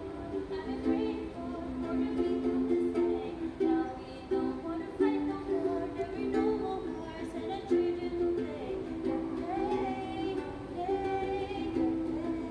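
A woman singing while strumming chords on a ukulele.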